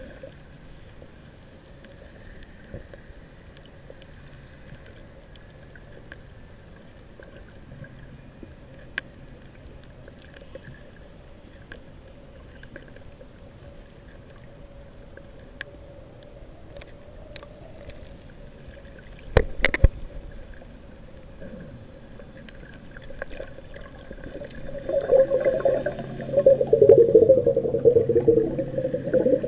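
Underwater sound through an action camera's waterproof housing: a muffled wash with small scattered clicks, two sharp knocks about two-thirds of the way through, and loud bubbling in the last few seconds as air bubbles rise around a snorkeler.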